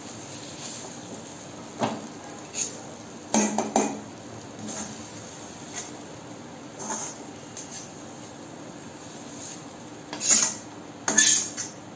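Metal spatula scraping and knocking against an iron kadhai as cooked beans are scooped out, in irregular separate strokes. A cluster of strokes comes about three and a half seconds in, and the loudest pair comes near the end.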